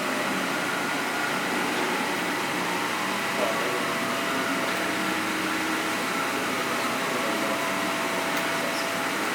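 Industrial pellet-extrusion 3D printer running during a print: a steady mechanical whir with faint motor tones that come and go as the machine moves.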